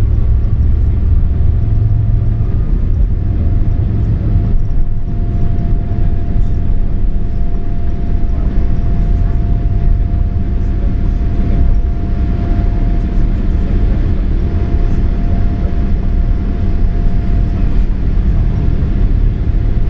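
Jet engine and airflow noise inside the cabin of a Boeing 787-8 at takeoff power, a steady heavy rumble with a faint steady tone over it.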